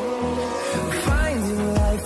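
Background pop music in a passage without singing: held synth tones over a beat with deep, pitch-dropping bass drum hits.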